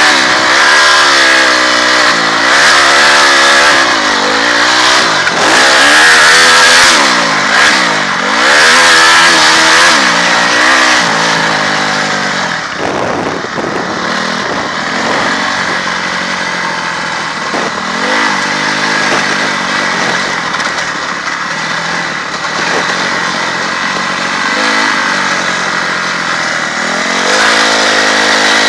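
Honda CRF250R's single-cylinder four-stroke motocross engine under hard riding, revving up and down repeatedly as the throttle is worked. About halfway through it drops to a quieter, steadier run at lower revs, then picks up and revs hard again near the end, heard from the rider's helmet.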